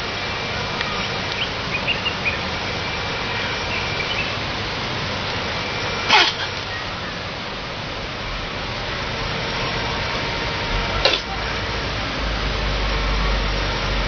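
Chimpanzee sick with flu letting out two sudden explosive bursts of breath, its sneezes and coughs, about five seconds apart, over a steady hiss.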